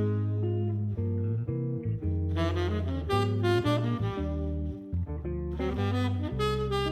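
Instrumental background music: a melodic lead line over sustained bass notes, with a brief dip in level just before the fifth second.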